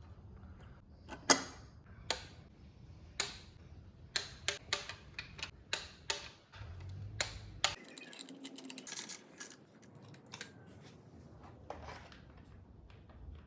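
Irregular sharp clicks and metallic taps of hand work on the small-block V8, about a dozen spread over the first eight seconds, the loudest a little over a second in, over a low hum.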